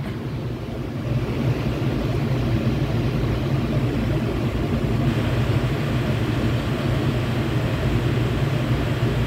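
Stulz commercial air-conditioning unit running in cooling mode with its compressor on: a steady low machine hum with air noise over it.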